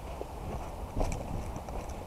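Footsteps on dirt and knocking of worn gear as a player moves, over a steady low rumble of handling noise, with the loudest knock about a second in.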